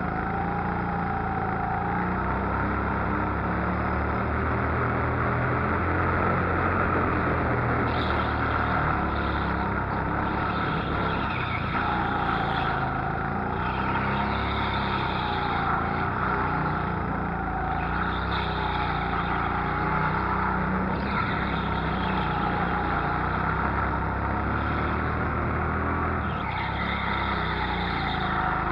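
Go-kart heard from on board, its motor pitch rising and falling over and over as it accelerates out of corners and eases off into the next ones.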